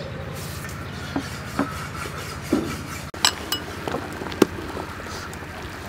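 A metal ladle clinking against a soup pot and a ceramic bowl as soup is served: a few light, separate clinks, the sharpest about four seconds in, over a steady low rumble.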